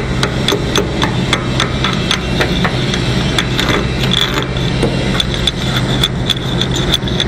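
Chipping hammer knocking welding slag off a fresh weld bead: sharp metal-on-metal taps, a few a second in an uneven rhythm, over a steady low hum.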